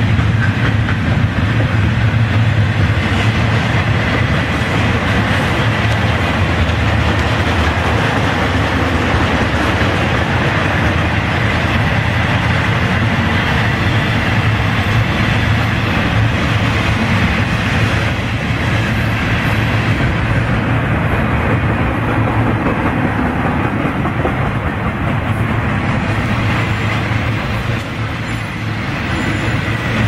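Freight cars of a long Florida East Coast Railway intermodal train, double-stack container cars and trailer flatcars, rolling past close by: a loud, steady noise of steel wheels on the rails that eases slightly near the end.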